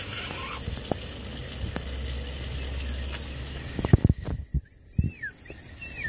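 Water from a garden hose spraying and splattering on wet concrete. About four seconds in there are a few sharp knocks and the water cuts off. A white-crowned parrot then gives two short, high, falling squeaks.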